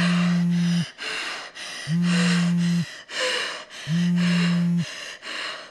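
Smartphone vibrating with an incoming call: three steady low buzzes, each just under a second long, about two seconds apart. Heavy breathing is heard in the gaps between the buzzes.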